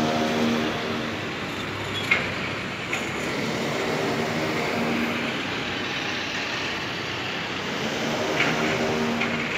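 Steady road traffic noise with a vehicle engine's hum that swells and fades a few times. A sharp click about two seconds in and a smaller one a second later.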